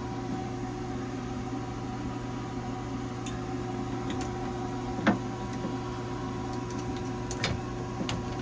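Steady machine hum with a few scattered light clicks and one sharper knock about five seconds in.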